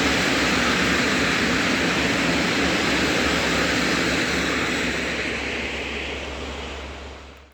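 A passing train's steady rushing noise of wheels on rails, fading as it moves away, then cut off abruptly near the end.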